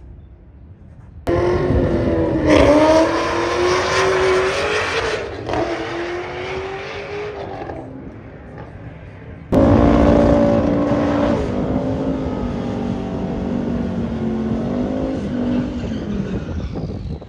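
Race car V8 engines at full throttle on a drag strip. Their pitch climbs twice as a car pulls away, then, after a sudden cut, an engine is held at high revs through a burnout at the starting line, its pitch dropping near the end.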